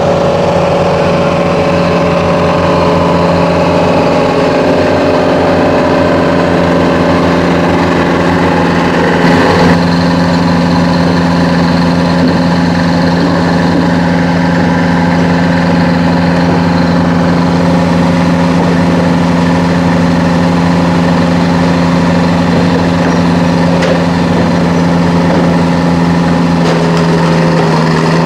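An engine running steadily, its note changing once about nine and a half seconds in.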